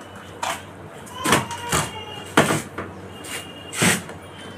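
About five sharp plastic knocks and clacks as the wiring and timer panel are handled on a washing machine's plastic cabinet, the loudest about two and a half seconds in.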